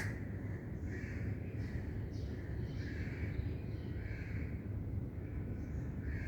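Crows cawing, a call every second or so, over a steady low rumble.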